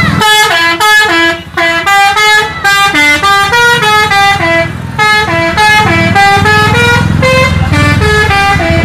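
Multi-tone musical air horn on a Hino tour bus playing a quick stepping tune, about three to four notes a second, the 'telolet' horn of Indonesian buses. The bus's diesel engine runs underneath.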